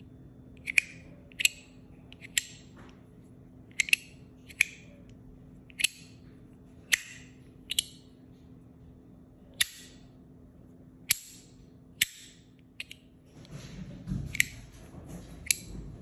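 Metal Starfish fidget slider clicking as its discs are worked by hand: sharp clicks about once a second at uneven spacing. Rustling handling noise joins the clicks near the end.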